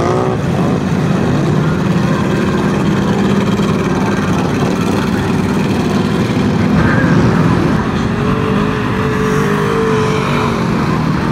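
Engines of big lifted mud trucks on oversized tractor tyres running loud as they drive slowly past. The engine note rises and falls a little past the middle.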